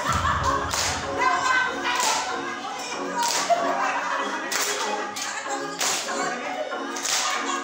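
Dance music playing for a Zumba workout, with a steady beat of sharp, snappy hits over held pitched notes.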